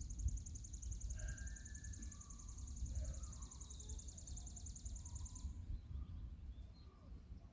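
Outdoor ambience: wind noise on the microphone, a steady high-pitched rapid trill that stops about five and a half seconds in, and a few faint bird chirps.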